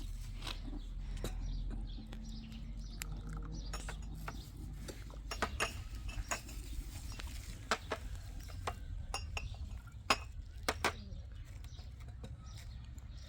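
Scattered light clinks and knocks of kitchen utensils and dishes being handled, irregular and unevenly spaced, over a steady low rumble.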